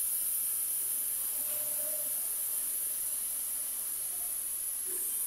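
Tap water running steadily from a single-lever faucet into a ceramic wash basin as the basin fills up. The basin is being filled to leak-test its newly fitted drain.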